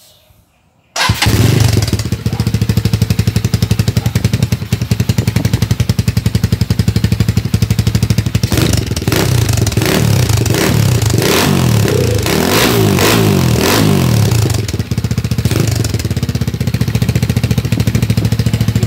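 Motorstar Z200S motorcycle engine running through the stock kalkal exhaust pipe with a 51 mm elbow and its silencer fitted. It comes in suddenly about a second in and runs steadily. It is revved in a series of blips about halfway through, then settles back.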